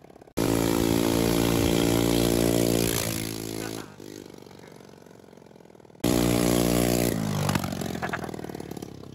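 Dune buggy's 150cc engine running with no muffler, loud, its note rising and falling as it is driven; the engine sound cuts in abruptly twice, and its pitch drops as it slows about seven seconds in.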